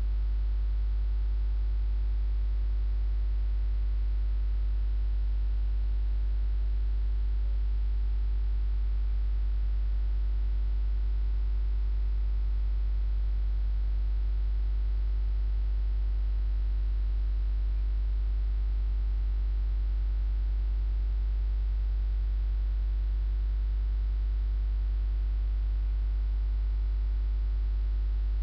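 Steady electrical mains hum: a low, unchanging buzz with faint higher tones and a light hiss over it. No bird calls are heard.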